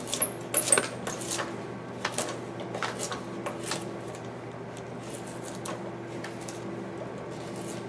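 Drawknife shaving a white cedar block with the grain: a series of short, sharp slicing strokes in the first few seconds, then fainter scrapes.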